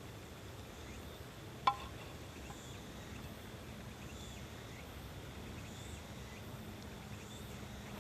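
Quiet outdoor ambience: a steady low hiss with faint, scattered chirps, and one sharp, short clink with a brief ring about a second and a half in.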